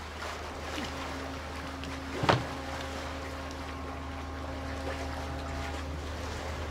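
Low steady hum under a held droning tone, with one sharp sound about two seconds in.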